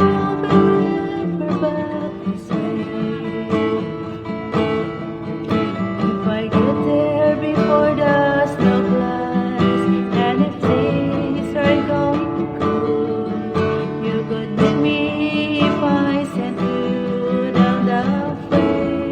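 Acoustic guitar strumming a slow country-folk song, with a melody line over the chords.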